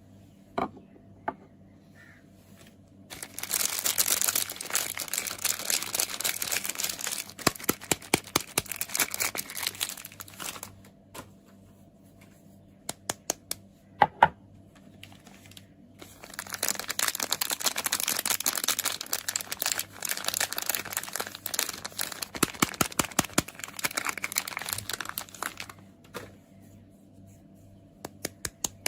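Soap packaging being unwrapped: the wrapper crinkles and tears in two long stretches, with sharp clicks and taps in between as it is handled.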